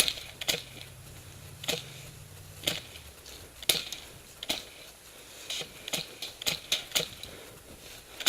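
Airsoft guns firing scattered single shots, sharp irregular snaps that come closer together in the second half. A low steady hum stops about three seconds in.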